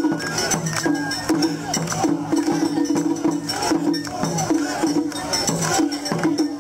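Music with held tones and light rattling percussion, over a crowd's voices.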